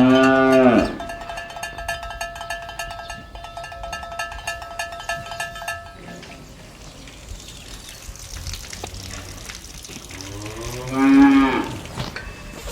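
Cattle mooing: one long moo right at the start and a second moo that rises and falls about ten seconds in. Steady ringing tones with a fast ticking run through the first half and stop about six seconds in.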